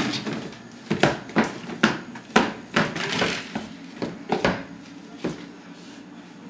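Footsteps of a toddler clomping in a man's oversized shoes on a kitchen floor: loose, uneven knocks about two a second, stopping about five seconds in.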